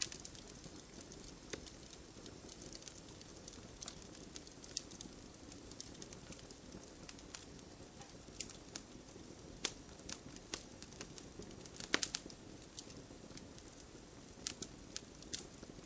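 Bonfire crackling and popping irregularly over a steady patter of rain, with the sharpest pop about twelve seconds in.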